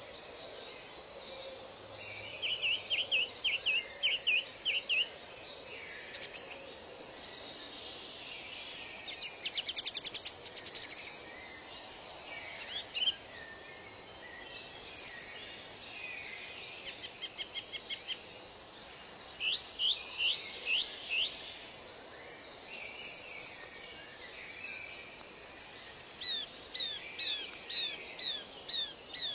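Birds singing: short phrases of quick high notes come every few seconds, one a fast trill and another a run of rising notes, over a steady background hiss.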